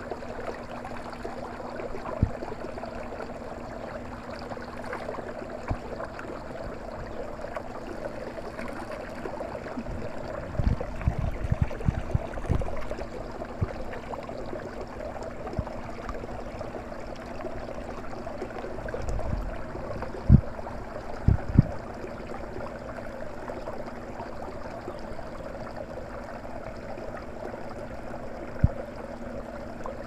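Drinking-fountain water jet running and splashing steadily over a macaque's hands and mouth. A few dull low thumps come in two clusters near the middle, the loudest about two-thirds of the way in.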